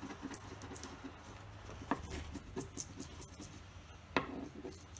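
Wood chisel scraping and prying under the edge of a thin veneered plywood speaker grille frame to free it from plastic: light scratchy ticking, with sharper clicks about two seconds in and just after four seconds.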